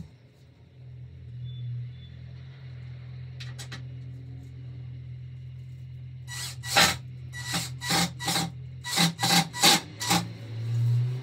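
Cordless drill driving a screw into a wooden shelf upright: a run of about ten short bursts in the second half as the screw goes into the wood.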